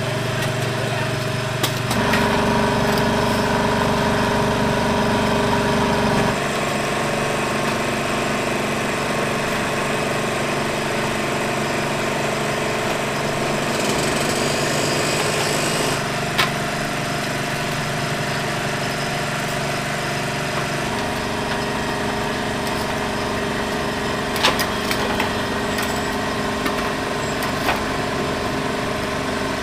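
A motor running steadily with a machine-like hum, louder for a few seconds near the start; a brief hiss around the middle and a few light clicks near the end.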